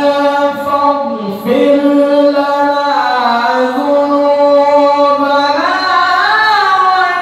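A man reciting the Quran in the melodic tilawah style into a handheld microphone: long held notes, a short breath about a second and a half in, and a wavering ornamented run near the end.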